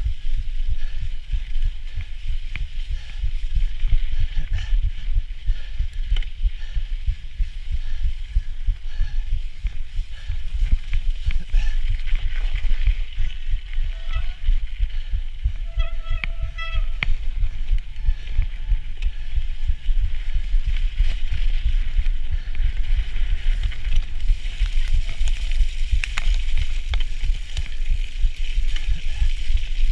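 Bicycle ridden fast over a rutted snow-and-dirt trail: a steady low rumble of tyres on rough snow and wind buffeting the handlebar-mounted microphone. A brief pitched sound cuts in about halfway through.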